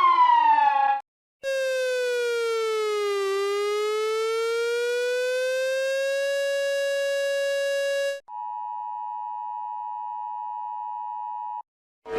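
Emergency alert alarm tones played in reverse. A buzzy electronic siren tone glides down, climbs back up and holds steady, then cuts off. A steady high alert tone follows for about three seconds.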